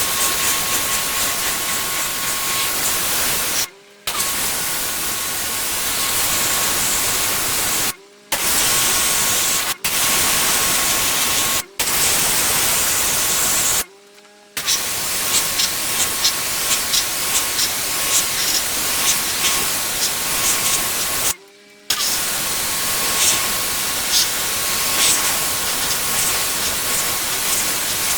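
Pressure washer jet spraying in a steady loud hiss with a faint whine, cutting off abruptly and restarting about six times, with quick crackling in the spray during the second half.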